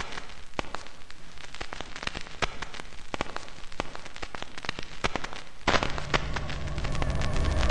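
Irregular crackling clicks over a faint hiss. About three-quarters of the way through, a low steady hum comes in beneath them.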